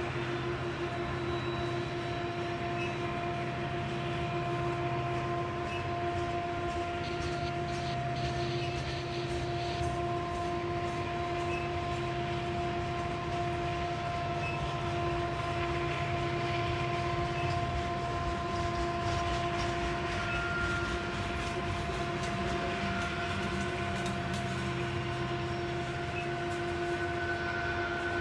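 A group of diesel-electric freight locomotives working hard to drag a loaded coal train slowly upgrade, giving a steady heavy engine drone with a constant whine over it. A higher steady tone joins in near the end.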